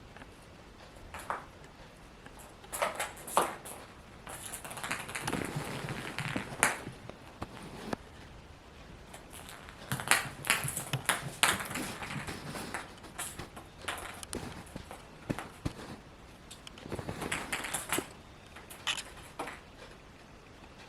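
Kittens batting a ping pong ball across the floor: irregular clusters of sharp light taps and clicks as the ball bounces and is struck, mixed with the scuffling of paws.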